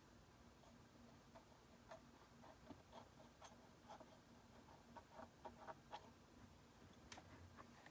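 Faint, irregular scraping and ticking of a steel hand scaler worked against the plastic teeth of a dental typodont, over a steady low hum.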